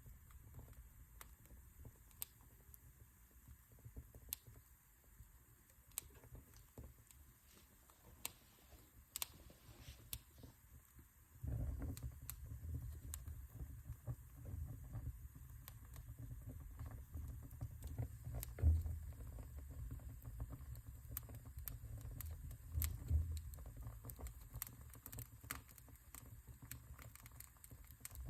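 Wood fire in a fireplace crackling, with scattered sharp pops and snaps. About eleven seconds in, a low rumble comes in abruptly and continues under the crackles.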